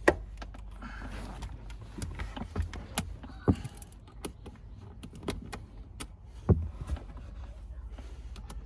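Irregular clicks and knocks of hand tools and plastic dashboard trim being worked loose, over a steady low hum. The loudest knocks come right at the start and about six and a half seconds in.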